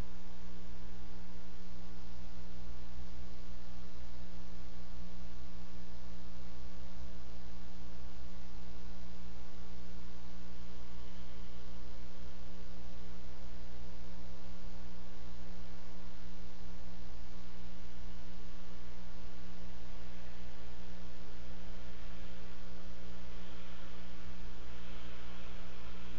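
Steady electrical mains hum with a buzzy stack of overtones, carried on the eagle webcam's audio feed and unchanging throughout. A faint hiss joins it near the end.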